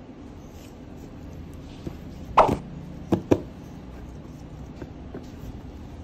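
Handling knocks from a phone's cardboard retail box on a desk: one loud knock about two and a half seconds in, then two quick sharp knocks close together, with a few faint clicks, over a steady low hum.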